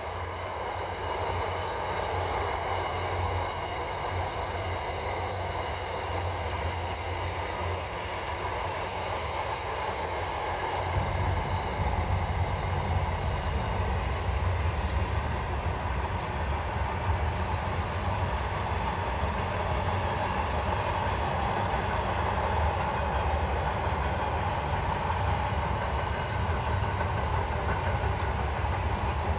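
A long freight train passing over a rail bridge: a steady rumble of wheels on the track, with a deeper, louder rumble setting in about eleven seconds in. The wagons are largely empty.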